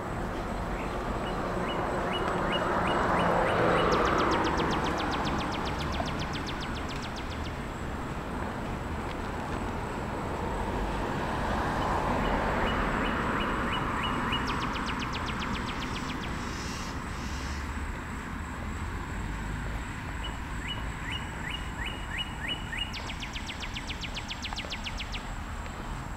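Two vehicles pass on the street, one about four seconds in and one near the middle, each swelling and fading. Three times over, a bird gives a run of short high chirps that breaks into a fast, dry rattling trill.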